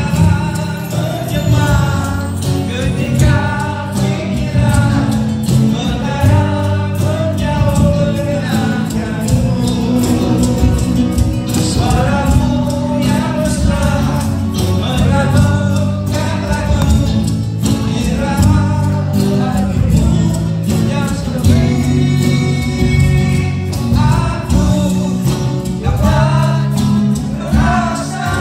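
A band playing a song with singing: a sung melody over steady bass and regular drum hits.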